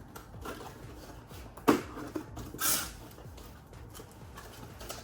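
Packaging being handled while a product box is opened: one sharp knock or click a little under two seconds in, then a brief rustle, with faint fumbling noises around them.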